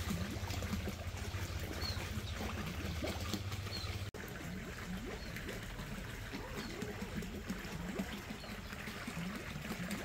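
Water trickling and gurgling in a koi pond, with faint short high chirps every couple of seconds.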